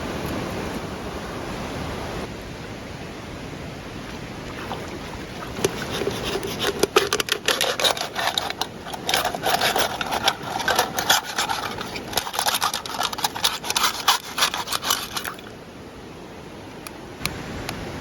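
Steady rushing background noise, then from about five seconds in a run of rapid scraping and rubbing with many sharp small clicks, lasting about ten seconds and stopping abruptly.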